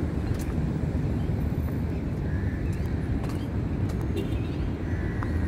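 Steady low outdoor rumble with no clear single source, plus a few faint clicks and distant faint sounds above it.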